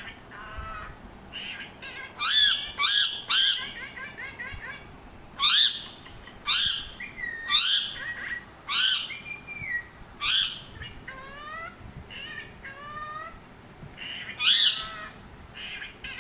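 Parrot squawking, about nine loud harsh squawks spread through, with chirps and sliding whistles in between.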